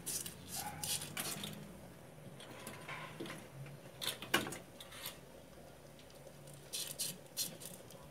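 Dry spaghetti strands clicking and rattling against each other and against the rim of a metal pot as they are pushed down into the water: scattered sharp ticks, one louder about four seconds in.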